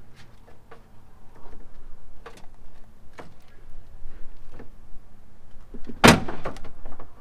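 Plastic clicks and knocks from a BMW X5 M's rear bumper cover as it is pulled and worked loose by hand, with one loud sharp crack about six seconds in.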